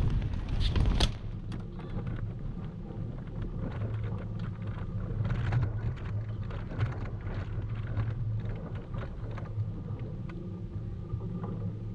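Tennis rally: a serve struck sharply at the start and a loud hit about a second later, then further racquet-on-ball strikes through the point, over a steady low rumble.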